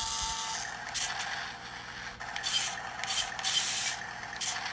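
Small remote-control toy tank's built-in engine sound effect playing through its tiny speaker after start-up: a thin, hissy running noise that swells and drops every second or so.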